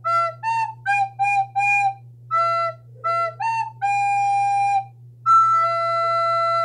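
Soprano recorder playing a line of separate tongued notes (G, E and A), then two held notes. The last held note squeaks, sounding its octave above over the note, which the player takes for a squeak from imperfect technique.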